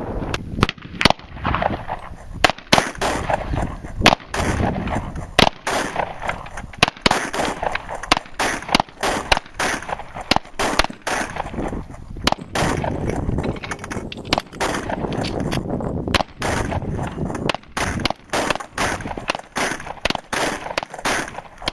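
Semi-automatic handgun fire from more than one shooter: dozens of sharp shots at an uneven pace, often one to two a second.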